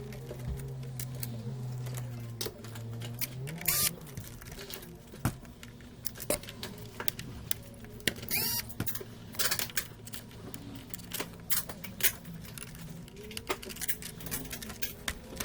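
Irregular sharp clicks and light metallic taps of tools working on a PS5 circuit board during HDMI port removal, over a low steady hum that stops about three and a half seconds in.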